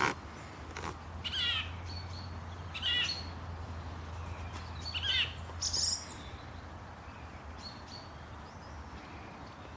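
Wild songbirds chirping in short, quick, warbling phrases, several in the first six seconds and then only a few faint ones, over a low steady hum.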